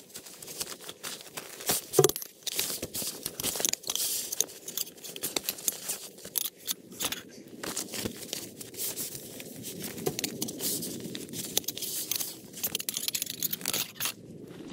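A black nylon carry bag and a plastic tarp rustling and crinkling as gloved hands handle and fold them, with a sharper crackle about two seconds in.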